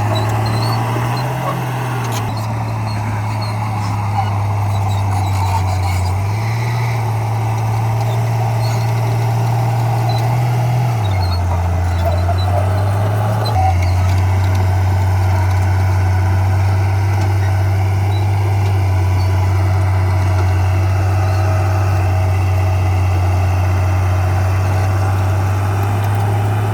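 Komatsu crawler bulldozer's diesel engine running under changing load, its low hum stepping up and down in pitch several times.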